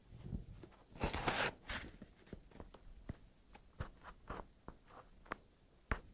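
Rustling and scattered light clicks and taps, with a louder rustle about a second in: handling noise and movement of someone walking about with a handheld camera.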